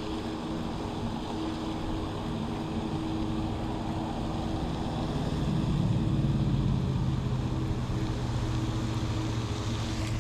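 A steady low motor hum holding a few fixed tones over an even background hiss, with a deeper drone coming in about halfway through and swelling a little.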